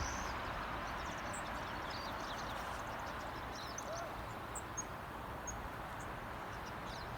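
Steady blizzard wind with a low rumble on the microphone. Scattered short, high chirps of small birds come through it.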